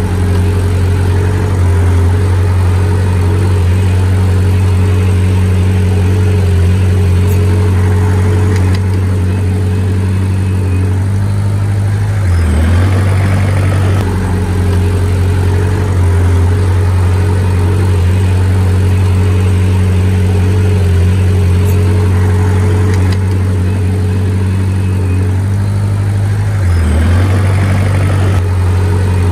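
Diesel engine of heavy earthmoving machinery running steadily, dipping briefly in pitch twice, about twelve seconds in and near the end.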